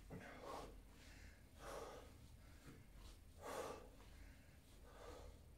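A man's breathing under exertion during single-leg glute bridges: four faint breaths, about one every second and a half.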